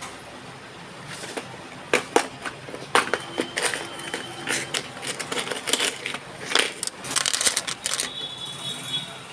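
Irregular close rustling, scraping and crackling clicks: handling noise right against the microphone, densest in the second half. A thin, steady high tone comes in near the end.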